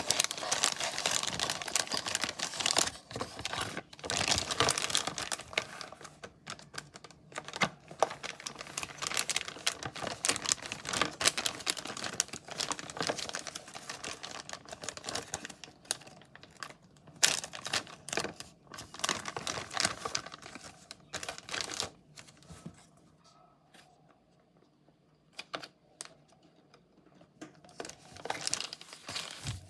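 Packaging being handled: crinkling and rustling with many small clicks and taps. It goes nearly quiet for a few seconds about three quarters of the way through, then starts again.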